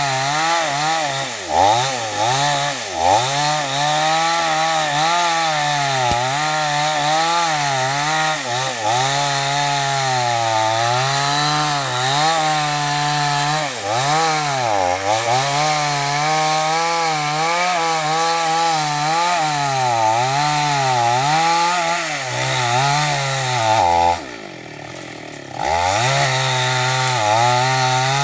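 Two-stroke chainsaw running at high revs cutting wood, its engine pitch repeatedly sagging and recovering as the chain bites in. About 24 seconds in it drops briefly to a low idle, then revs back up.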